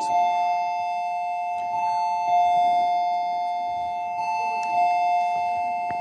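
Two-tone ding-dong doorbell chime ringing over and over, a higher note followed by a lower one, the pair repeating about every two and a half seconds with each note ringing on into the next.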